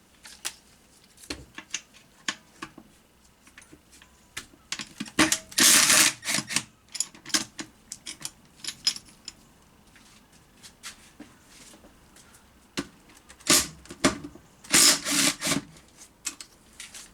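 Hand tools and loose metal gearbox parts clinking and clattering during disassembly: scattered sharp clicks, with two louder bursts of rattling about five seconds in and near the end.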